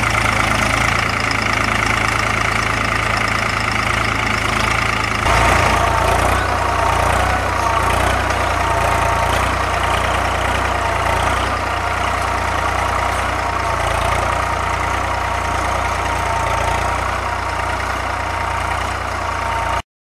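Tractor engine running steadily under load while pulling a two-disc plough through dry field soil. The engine note shifts about five seconds in, and the sound cuts off suddenly near the end.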